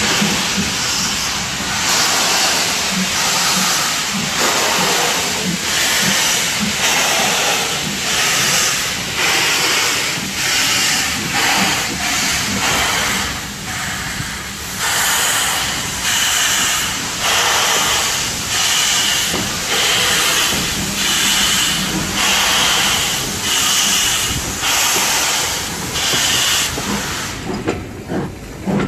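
Steam locomotive, the BR Standard Class 4MT tank engine 80072, working with steady, regular exhaust beats, a little over one a second, over a constant hiss of steam.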